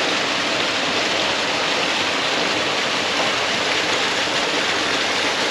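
Water pouring from two pipe spouts into a small pond, a steady splashing rush.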